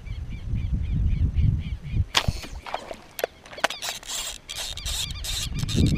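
A slingshot fishing shot: a sharp snap about two seconds in as the arrow is released, followed by a quick run of clicks and rattles as the line pays out. Before the shot there is wind rumble on the microphone and short chirps repeating in the background.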